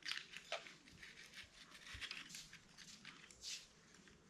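Faint, scattered light clicks and rustles of small plastic drone parts and packaging being handled.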